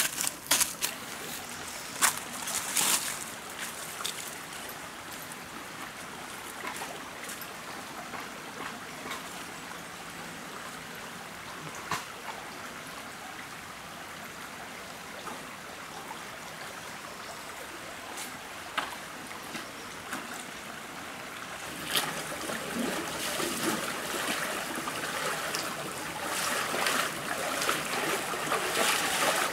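A shallow forest stream trickling steadily, getting louder and busier from about two-thirds of the way in. Footsteps crunch on dry leaves and twigs in the first few seconds, with a few scattered snaps later.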